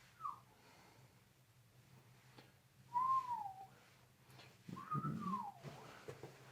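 Three short whistled notes, each sliding down in pitch: a brief chirp just after the start, a louder note about three seconds in, and a longer arching one about five seconds in.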